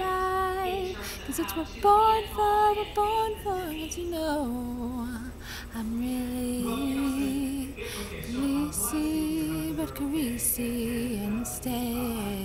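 A woman's solo voice singing an improvised melody a cappella, holding notes and sliding between them; the melody drops lower about four seconds in.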